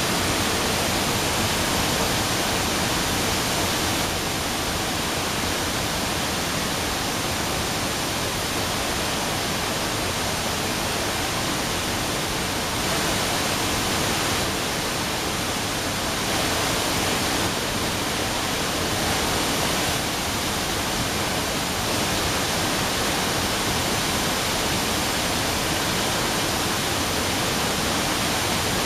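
Water jetting from a concrete dam's discharge outlets and crashing into the spray pool below, a steady rushing roar of falling water and spray.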